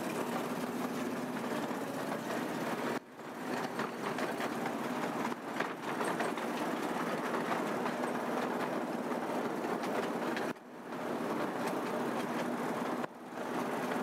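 Miniature ride-on train running along its 12-inch gauge track, a steady rumbling run of wheels on rail with a low motor hum. It breaks off abruptly three times.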